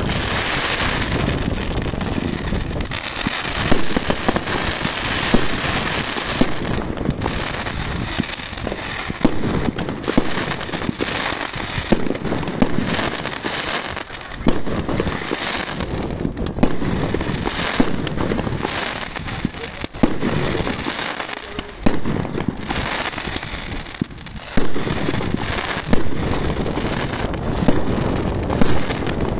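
Aerial fireworks firing in a continuous barrage: shots launching and bursting in quick succession with crackling, and louder reports standing out now and then.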